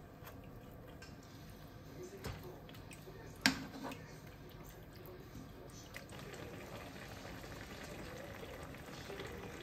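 A pan of chicken stew simmering and bubbling while metal tongs stir it, clinking against the pan a few times. The sharpest clink comes about three and a half seconds in.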